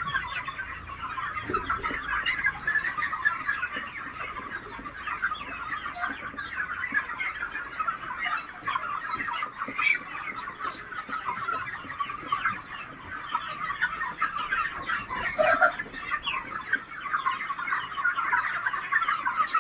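A large flock of chickens, about 35 days old, clucking and chirping all at once in a dense, unbroken chatter, with a few sharp clicks about ten seconds in.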